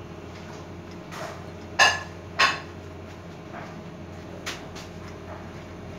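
Two sharp metallic clanks about half a second apart, each ringing briefly, with a few lighter knocks, as the V-belt pulley on a Salva planetary mixer's open drive is handled and worked into place.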